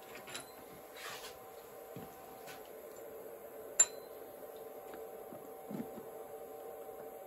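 Small handling clicks and one sharp metallic click with a brief high ring, a little under four seconds in, as a Z-probe lead and its RCA plugs are handled and plugged into a CNC control box's probe jack. A steady hum runs underneath.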